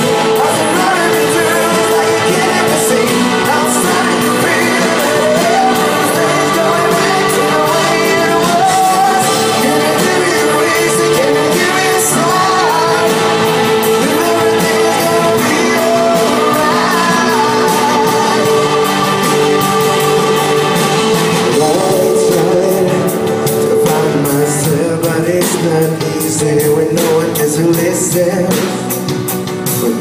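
Live pop-rock band playing through a stage PA, with electric guitar, keyboards and drums and a melody line over a long held note. The sound thins out about two-thirds of the way through before the band fills back in.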